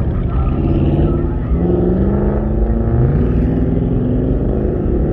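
Several car engines running close by, their revs rising twice, about two and three seconds in, as the cars pull off.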